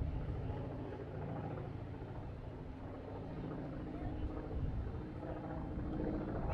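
Steady low diesel engine hum from a truck-mounted crane running, heard from a distance, with faint voices.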